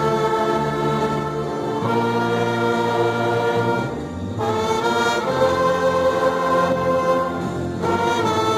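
A church orchestra led by brass (trumpets and trombones) playing a hymn in slow, held chords. The chords change about every two seconds, with a brief dip in the sound a little past the middle.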